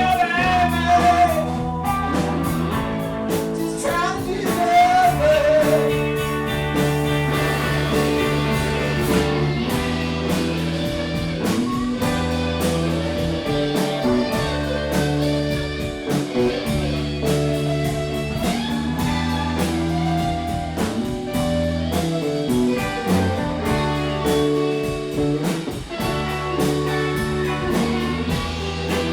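Live blues-rock band playing: slide guitar over lead guitar, bass guitar and drums, with gliding, bending notes in the first few seconds.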